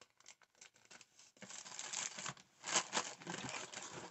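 Paper and packaging rustling and crinkling as hands go through the contents of a kit box: a few faint scattered clicks at first, then steady rustling from about a second and a half in.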